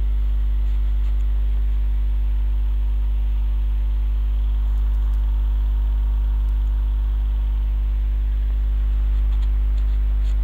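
Steady electrical mains hum, a low buzz with a stack of overtones, loud and unchanging under the recording, with a few faint ticks.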